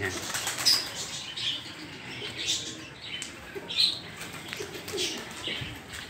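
Domestic pigeons on a rooftop loft: short, irregular wing flaps with faint bird calls.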